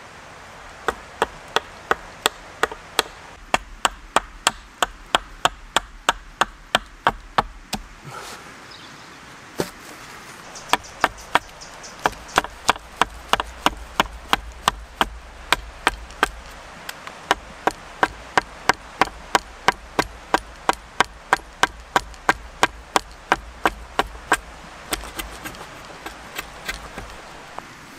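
Hatchet carving a green ash paddle blank: a steady run of short chopping strokes, about two or three a second, each a sharp knock of the blade biting into the wood, with a brief break about eight seconds in.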